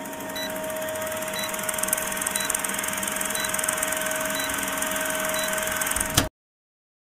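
Old film projector sound effect: a steady mechanical whir with a constant hum and crackly hiss, and a short high blip once a second, cutting off suddenly about six seconds in.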